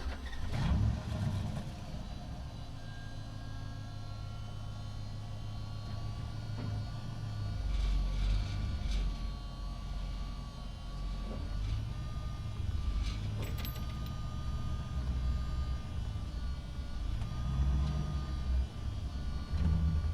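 Truck engine driving through a multi-storey parking structure: a low rumble that swells and eases with a steady high whine over it, and a few short sharp clicks about eight and thirteen seconds in.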